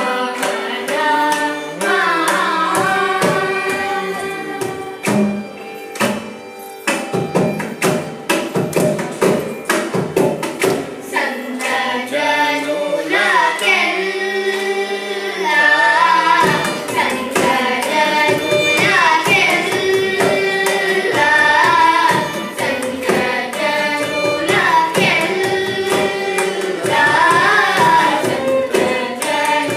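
Children singing a Carnatic song together in unison, accompanied by violin and the strokes of a mridangam drum.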